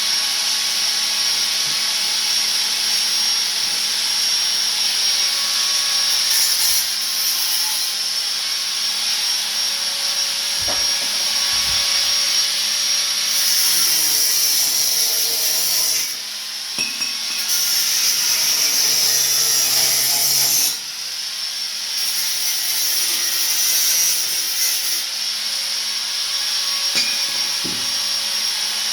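Angle grinder cutting and grinding steel exhaust pipe, running steadily under load with a high whine, easing off briefly twice partway through.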